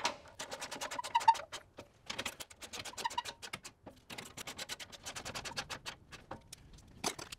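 Ratcheting torque wrench clicking rapidly as bolts on an aluminium skid plate are snugged down, in three runs with short pauses between them.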